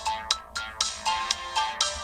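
Chuwi HiPad X tablet playing one of its stock Android 10 ringtones: a bright electronic melody of short pitched notes, a new note about every quarter to half second.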